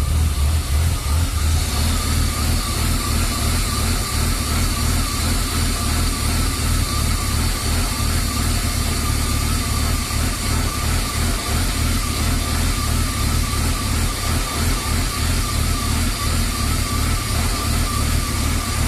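BMW E36 325i's 2.5-litre straight-six idling steadily, with a faint wavering whine above the low engine drone.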